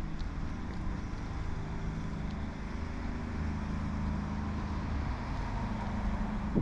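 An engine running steadily, a low hum over general street noise.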